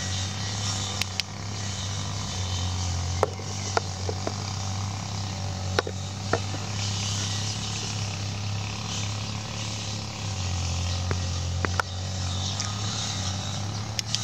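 A steady low mechanical hum, with a dozen or so light, sharp clicks and taps scattered through it.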